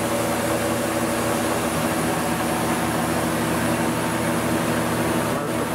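Steady machine hum with several steady tones over a wide hiss: the Walter Helitronic Vision CNC tool grinder and its white filter-panelled side unit running during the machine's warm-up program.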